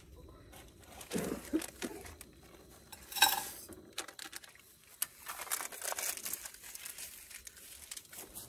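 Paper crinkling and rustling as camp cooking gear is handled, with one sharp ringing clink about three seconds in.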